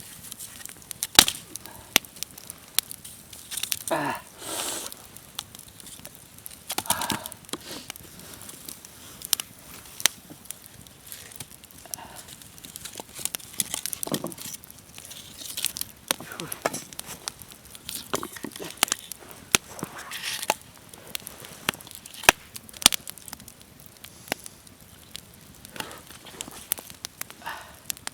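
Campfire burned down to embers, crackling with irregular sharp pops.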